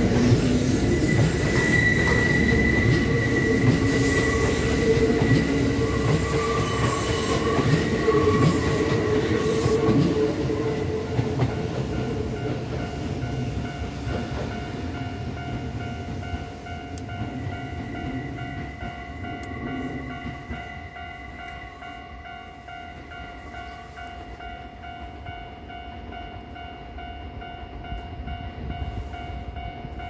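Kintetsu electric train rumbling and clacking over the rails as it passes and draws away, loud for about ten seconds and then fading. A level-crossing warning bell keeps ringing steadily, clearer once the train noise dies down.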